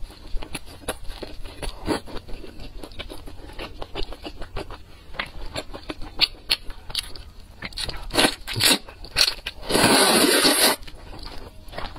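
Close-miked eating sounds: wet chewing and mouth smacks of noodles, many small clicks, then a loud slurp of noodles lasting about a second near the end.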